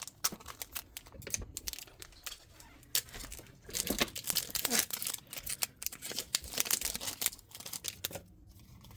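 Foil booster-pack wrapper of a Pokémon card pack crinkling and tearing open, with a run of quick crackles and snaps that is busiest in the middle.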